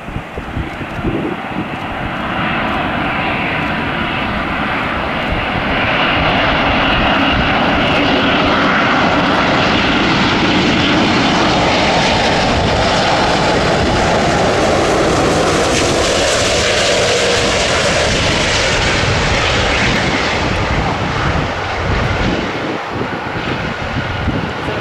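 Airbus A380 airliner flying low overhead on landing approach, the noise of its four jet engines growing loud, with a whine that slides down in pitch as it passes. The sound eases off over the last few seconds. Wind rumbles on the microphone throughout.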